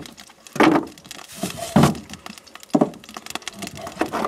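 A chef's knife slicing through venison tenderloin and knocking on a wooden cutting board: a series of sharp knocks about a second apart, with lighter clicks between them.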